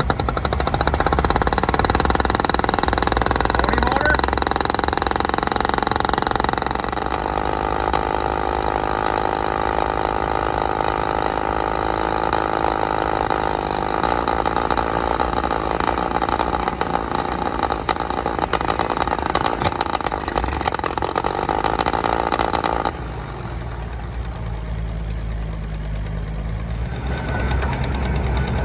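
Engine of an antique Insley dragline excavator running steadily. Its sound changes about seven seconds in, gets quieter and duller about 23 seconds in, then builds again near the end.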